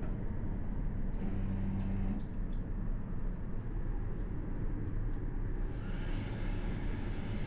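Steady low running rumble of a Class 395 Javelin train heard inside its toilet compartment, with a brief hum about a second in. About six seconds in, the washbasin unit's built-in hand dryer starts blowing with a steady hiss.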